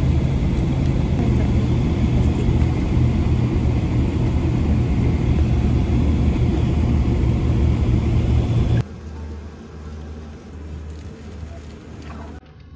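Steady airliner cabin drone: a loud low rumble with a hum under an even rush of air. About nine seconds in it cuts off suddenly to a much quieter, faint cabin hum.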